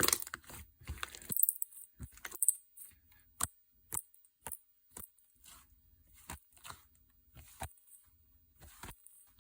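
Homemade slime being pressed and stretched by hand: irregular sharp clicks and small pops, a cluster at the start and then one or two every second or so.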